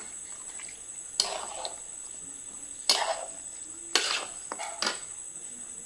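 Flat metal spatula scraping and stirring masala-coated pork against a black iron kadai, about four scrapes, the loudest about three and four seconds in.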